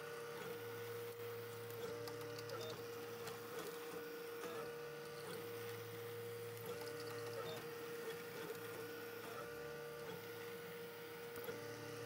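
Stepper motors of an Ultimaker Original 3D printer whining as it moves the print head while printing a part. A steady whine steps briefly up in pitch every second or two, and a lower hum switches on and off for a few seconds at a time.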